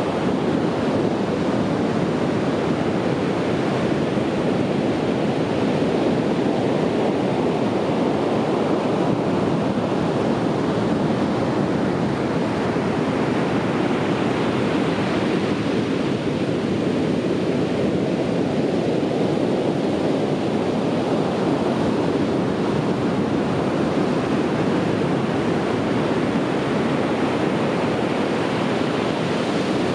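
Sea waves breaking and washing on a beach: a steady, continuous wash of surf.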